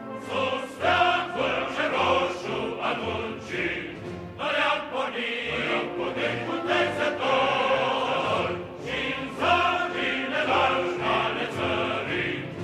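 Choral music: a choir singing in sustained chords.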